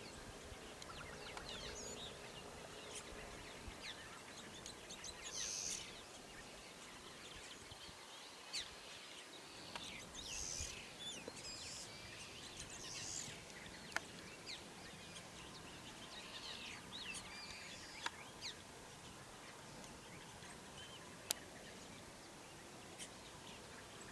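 Faint birds chirping and calling on and off over a steady open-air hiss, with two sharp clicks, one in the middle and one near the end.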